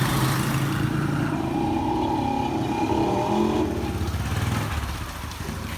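A motorcycle engine running close by, its pitch wavering, then fading away after about four seconds.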